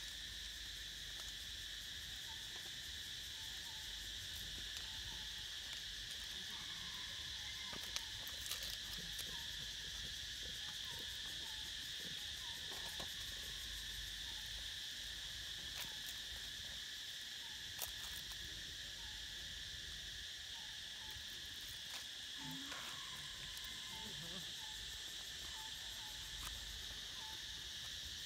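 Steady, high-pitched insect chorus droning without pause, with faint short chirps and a couple of sharp clicks, about eight seconds in and again near eighteen seconds.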